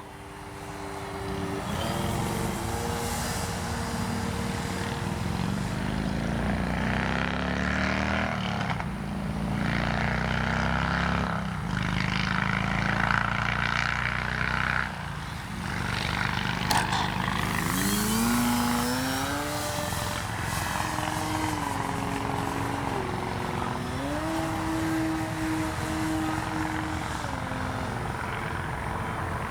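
Electric RC plane in flight: the whine of its brushless outrunner motor and 13x6.5 propeller, its pitch stepping and gliding up and down as the throttle changes, with a clear rise about two-thirds of the way through.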